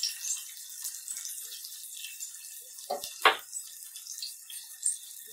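A metal spoon clinks against a small ceramic bowl, with two quick knocks about three seconds in and a lighter one near the end, over a steady hiss.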